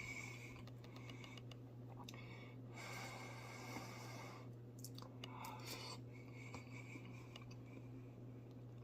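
Faint chewing of a forkful of microwaved Mexican-style street corn, with a few small clicks of the fork against the bowl, over a steady low hum.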